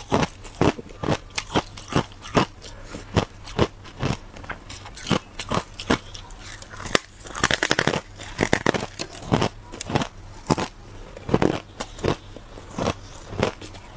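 Thin, hard ice slab dusted with matcha powder being bitten and chewed: sharp cracks and crunches, two or three a second, with a thicker run of crackling about seven seconds in as the ice breaks up in the mouth.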